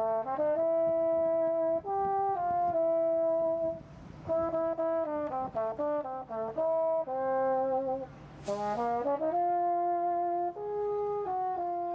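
A horn playing a slow melody of held notes, one note at a time, with short breaks about four and eight seconds in and a brief hiss during the second break.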